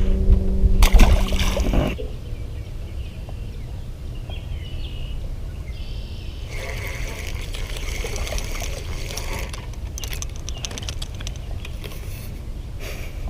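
Water sloshing and splashing against a small fishing boat, with wind rumbling on the microphone. A steady electric hum from the bow-mount trolling motor stops about two seconds in.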